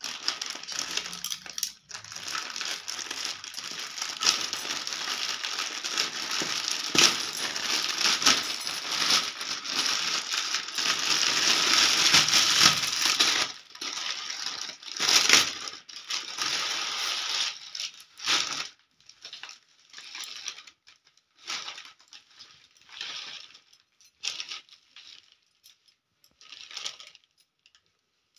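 Plastic packaging crinkling as a courier mailer is cut open with scissors and handled: a dense, continuous crackle for about the first thirteen seconds, then shorter crinkling bursts every second or two as the clear plastic garment bag is pulled out and opened, thinning out near the end.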